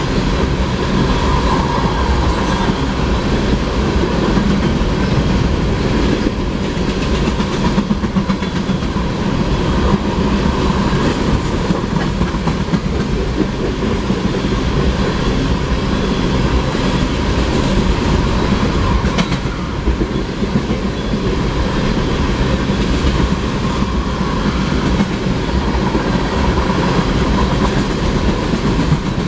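A long train of empty tank cars rolling steadily past a grade crossing. Steel wheels clatter over the rails in a continuous, even rumble.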